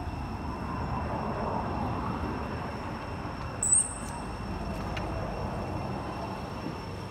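Steady outdoor background rumble with a faint high whine, and one short high-pitched chirp just past halfway.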